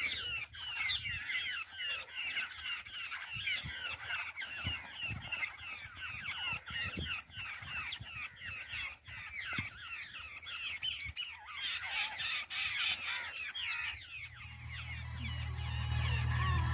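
Babblers chattering, a dense run of harsh, rapid call notes one after another. About two-thirds of the way through the chatter fades and a low steady hum comes in and grows louder.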